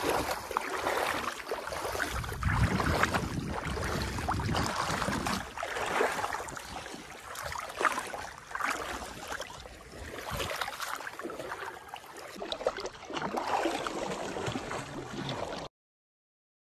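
Water sloshing and splashing irregularly as a person wades waist-deep through a pond and stirs the water with his arms, feeling about under the surface. The sound cuts off abruptly about a second before the end.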